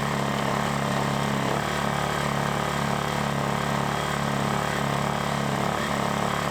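Lifan ESI860i-CA 40cc inverter generator's small gasoline engine running at a steady speed.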